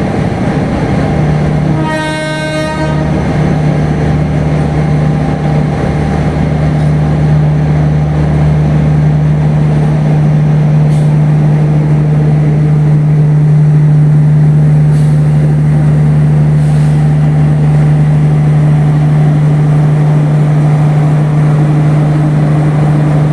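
CC201 diesel-electric locomotive engine running with a loud, steady low hum, with one short train-horn toot about two seconds in.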